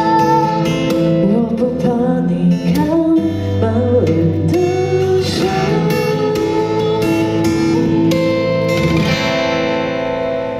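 Live band playing the closing bars of a pop ballad, led by acoustic guitar with electric guitar behind it. A sung vocal line runs through the first half, then gives way to held instrumental chords that ease off near the end.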